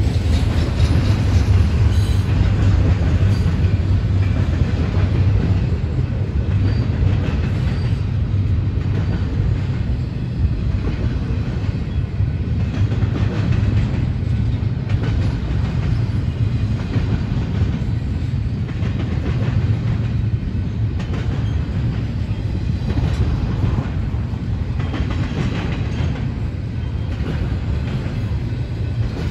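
Double-stack intermodal container train rolling past: a steady rumble of steel wheels on the rails, with the repeated clickety-clack of wheels passing over rail joints.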